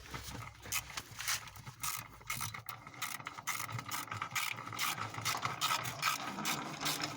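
Hand ratchet wrench clicking in rapid repeated strokes while turning the bolts of a new engine oil pan.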